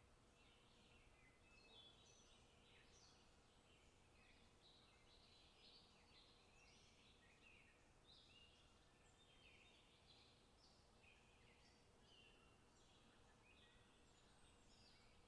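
Faint, steady chatter of many small songbirds, with short chirps overlapping one after another throughout.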